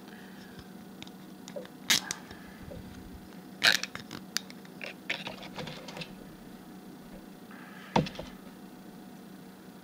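Plastic cable ties being fitted and pulled tight around a wooden couch leg: a few sharp clicks and knocks, with a run of small clicks from about three and a half to six seconds in, over a steady low hum.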